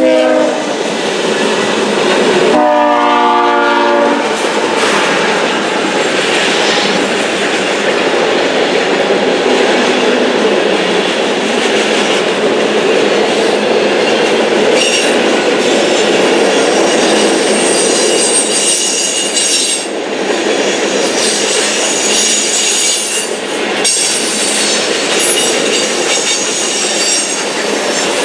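Freight locomotive's air horn sounding as it passes close by: the end of one blast at the start, then another blast of about a second and a half, several notes together. Then the steady noise of covered hopper cars rolling past, their wheels clattering on the rails, with a thin high wheel squeal from about halfway.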